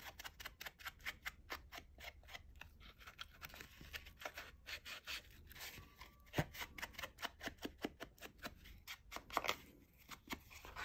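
Faint, quick scratchy rubbing strokes, many a second, as Distress ink is rubbed along the edges of a cardboard tag, with one sharper tap about six seconds in.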